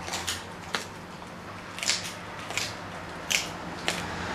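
A dog chewing a dried pig's ear, with about five sharp crunches at irregular intervals as its teeth break through the hard ear.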